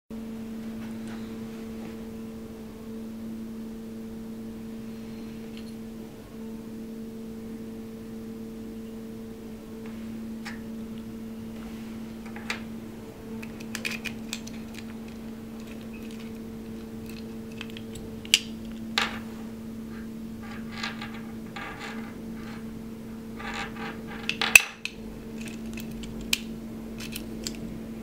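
A zinc-alloy key-locking lever latch being worked by hand: scattered small metallic clicks and clinks as the key turns in the lock and the trigger and lever move, with one sharp snap near the end. A steady low hum lies underneath.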